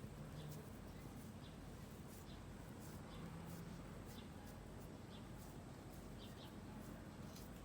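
Faint, short bird chirps at irregular intervals over a low, steady background hum.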